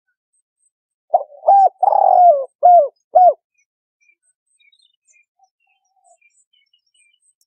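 A spotted dove cooing one phrase of five notes, the middle one longer and falling in pitch, about a second in; a recorded lure call used to draw doves to a trap.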